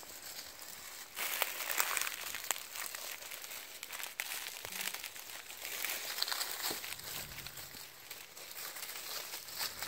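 Dry leaf litter rustling and crackling as nine-banded armadillos root and shuffle through it, with irregular small crunches and clicks.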